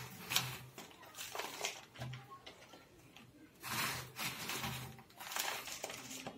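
Hands scooping loose potting soil off a plastic sack and pressing it into a cut plastic bottle: irregular bursts of gritty scraping and plastic rustling, several times over.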